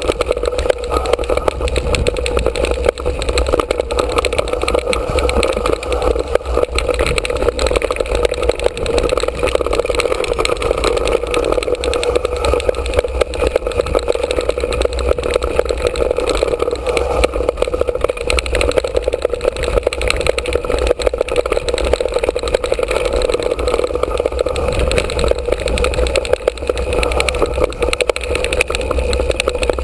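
Mountain bike descending a dirt trail at speed, heard from a camera mounted on the bike: a steady rush of wind and tyre noise with a deep rumble and constant small rattles and knocks from the bike shaking over the ground.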